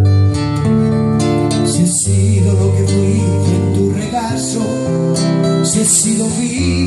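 A man singing to his own nylon-string classical guitar, strumming and holding chords under the voice.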